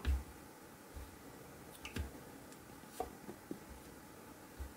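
Faint handling noise: a few soft, scattered clicks and low thumps, roughly one a second, as a steel-bracelet diver's watch is held and turned in the hand.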